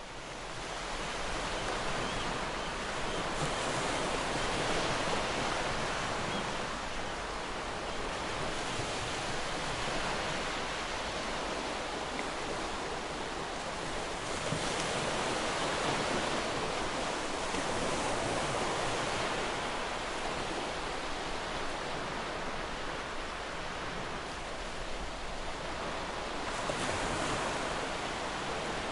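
Sea waves breaking and washing on a shore, a continuous rush of surf that swells and eases every several seconds. It fades in at the start.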